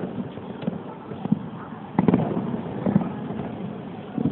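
Fireworks display: shells bursting in a string of bangs about every half to one second, with the loudest cluster of bursts about halfway through.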